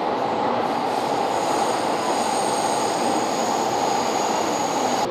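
A train running at a station platform: a loud, steady rumble and hiss, with faint high whines over it from about two seconds in.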